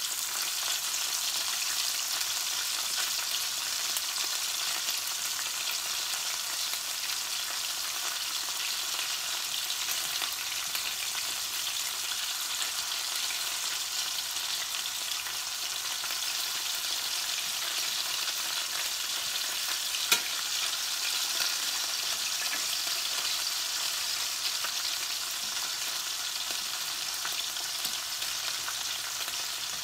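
Beef strips sizzling steadily in hot oil in a stainless-steel skillet while metal tongs turn them. A single sharp click sounds about two-thirds of the way through.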